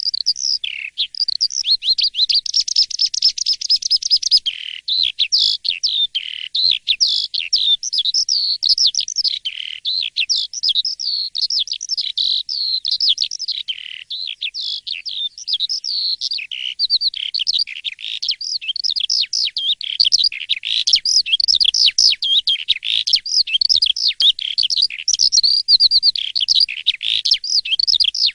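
Asian pied starling (jalak suren) in full song: a fast, unbroken run of varied chirps, whistles and trills.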